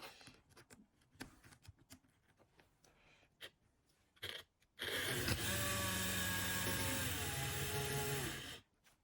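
Small electric motor of a LIMA N-scale Class 55 Deltic model locomotive running with a steady whine for about four seconds, its pitch dropping slightly before it stops; the freshly repaired motor runs smoothly. Faint clicks of handling come before it.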